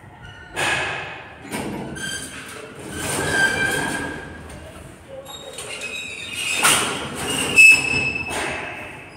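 Collapsible steel grille gate of a lift being slid open and then pulled shut, rattling and clanking along its track in several bursts, with a metal squeal near the middle and again near the end.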